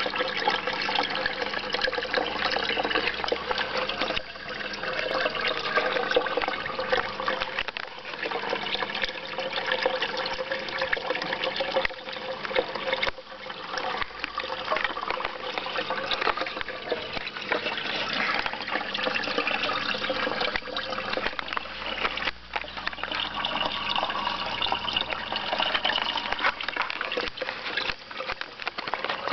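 Water trickling and splashing without a break in an aquaponic goldfish tank.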